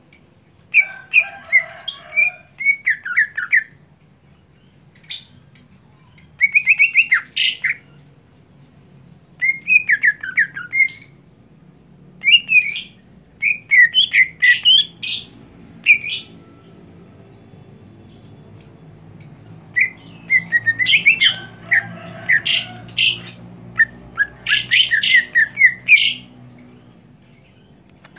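Male greater green leafbird (cucak ijo) singing in repeated bursts of fast, chattering notes that sweep up and down in pitch, with short pauses between phrases.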